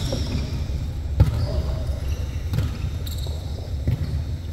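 Volleyball in play on an indoor court: the ball is struck several times, the sharpest hit about a second in, with short high squeaks over a steady hall din.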